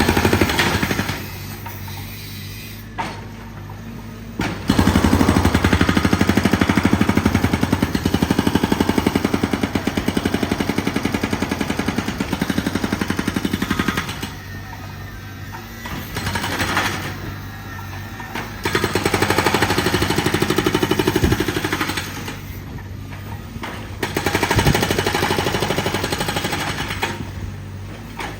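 A jackhammer-type breaker hammering rapidly in several bursts, the longest about nine seconds, with a machine running steadily underneath between the bursts.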